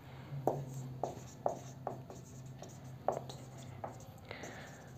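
Marker pen writing on a whiteboard: a series of short, faint strokes and taps as words are written, with one longer stroke near the end. A steady low hum lies underneath.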